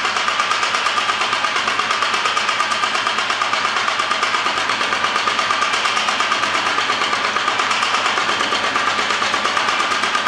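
Homemade power hammer on its first test run, the ram hammering in a fast, even rhythm of several blows a second without let-up.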